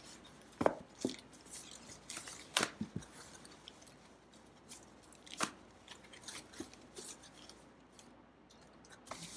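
Unpacking noises: plastic wrapping rustling and crinkling as parts are lifted from a cardboard box, with a few sharp clicks and knocks, the loudest about half a second, one second, two and a half and five and a half seconds in.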